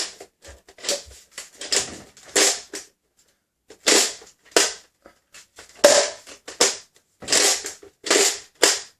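Packaging being handled: a dozen or so short crinkling, rustling bursts of plastic wrapping around a toy blaster being pulled free.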